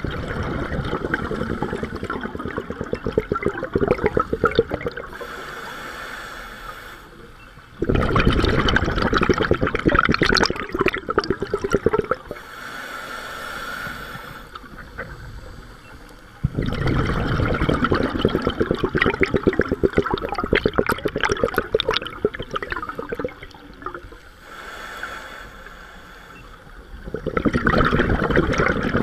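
Scuba regulator exhaust: a diver's exhaled air bubbling out in four loud, bubbly bursts of several seconds each, roughly every eight seconds, with quieter stretches between as the diver breathes in.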